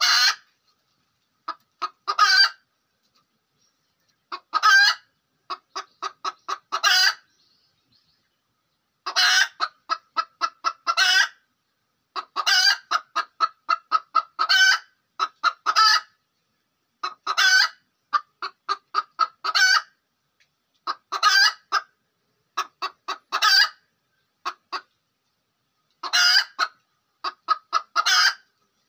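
Domestic hen cackling: runs of quick clucks, each ending in a long, loud, drawn-out squawk. The phrase comes over and over, about every two seconds.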